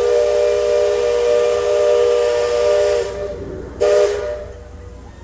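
Liberty Belle riverboat's steam whistle sounding a steady chord of several tones over a hiss of steam. A long blast cuts off about three seconds in, and a short second blast follows about a second later.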